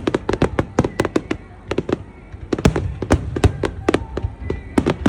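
Fireworks going off in a rapid barrage: many sharp bangs and crackles, several a second, overlapping one another.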